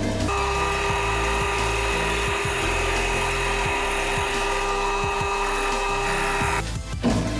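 Small power tool running at one steady pitch, a whine that starts just after the beginning and cuts off suddenly about a second before the end, over background music.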